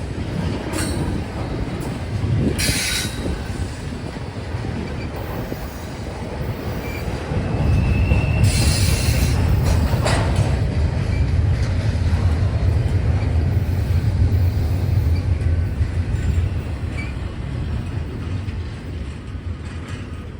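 Freight train rolling past: a steady low rumble of railcars on the track that grows louder past the middle and fades near the end, with two short bursts of hiss and a brief high wheel squeal.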